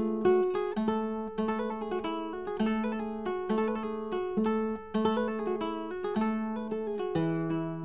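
Background music: an acoustic guitar playing plucked notes at a steady pace, with a lower bass line coming in near the end.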